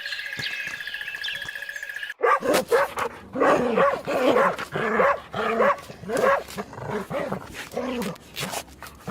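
A dog barking repeatedly in short, quick barks, starting abruptly about two seconds in; before that, birds chirping over a steady high buzz.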